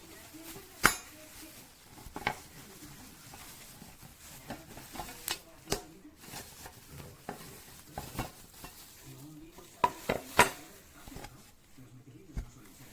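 Scattered sharp knocks and clicks of hard objects being handled and set down, at irregular intervals, loudest about a second in and in a quick cluster around ten seconds in.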